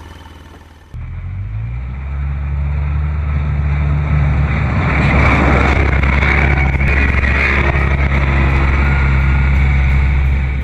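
Polaris Ranger 800 HD utility vehicle on snow tracks driving, its twin-cylinder engine running steadily. It grows louder over the first few seconds after a cut, then holds an even drone.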